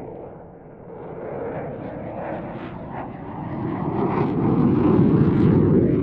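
Eurofighter Typhoon's twin Eurojet EJ200 turbofans in afterburner passing overhead. The jet noise builds steadily from about a second in and is loudest near the end.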